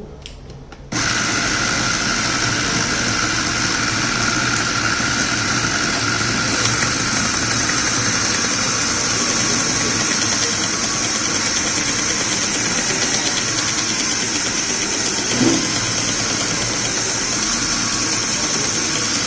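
Mini belt grinder driven by a geared DC motor (an 18,000 RPM motor reduced to 1000 RPM) switching on about a second in and then running steadily, a constant mechanical noise with a steady high tone over it.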